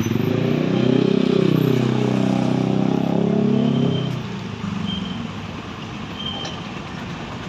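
A large diesel bus driving past, its engine note rising and then falling as it goes by. It fades after about four seconds to a lower traffic hum.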